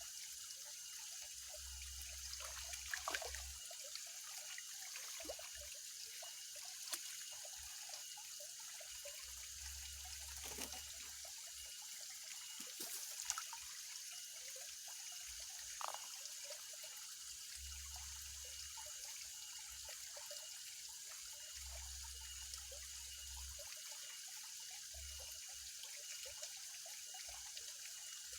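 Steady trickle of water at a fish pond, with a few brief splashes or ticks scattered through.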